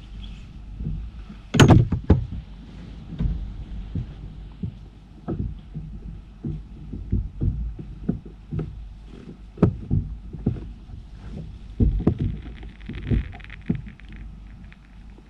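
Irregular low knocks and thumps on a fishing kayak's hull, about one or two a second, with one sharp, louder knock about a second and a half in.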